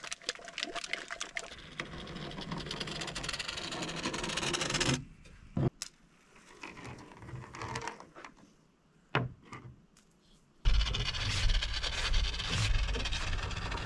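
Aerosol expanding spray foam hissing and spitting from the can's nozzle as a bead is run along the joists. It cuts out about five seconds in, leaving a few clicks. Near the end the hiss returns with a heavy low rumble.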